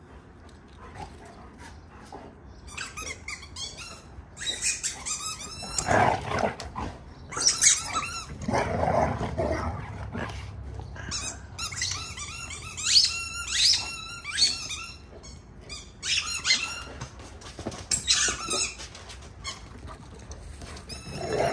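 A dog whining in repeated high, wavering cries, with a few lower, throatier cries mixed in.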